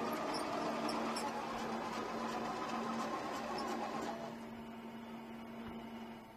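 Small electric drive of a scale-model Voith tractor tug whirring steadily over a constant hum. It drops away about four seconds in as the tug moves off.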